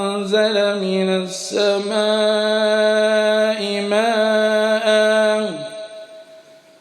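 A man's voice chanting Quran recitation in melodic tartil, holding long drawn-out notes with small ornamental turns. The voice drops in pitch and fades out about five and a half seconds in, leaving a short pause at the end.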